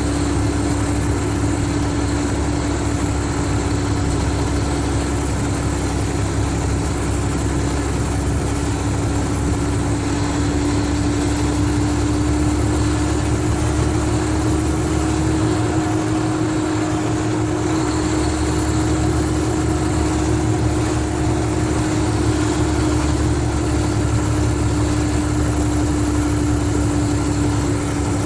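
Mercedes-Benz O500RSD coach's diesel engine running steadily: a constant low rumble with a steady whine over it that rises slightly and settles again.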